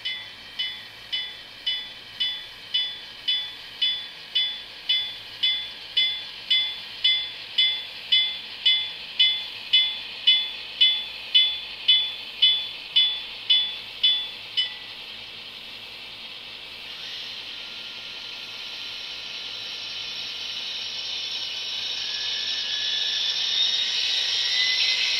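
Sound decoder of an HO scale Union Pacific GTEL gas turbine locomotive model, heard through its small onboard speaker: a locomotive bell rings just under twice a second, getting louder, then stops abruptly about halfway through. A high hiss of the turbine spooling up follows and grows steadily louder.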